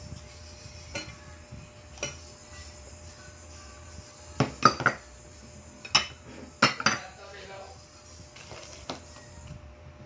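Clinks and knocks of a spoon and plates against a metal bowl: single clinks at first, then a few quick clusters near the middle, which are the loudest.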